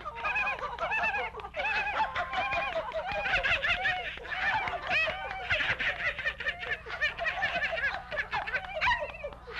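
Several high-pitched cartoon animal voices laughing together in quick, overlapping bursts.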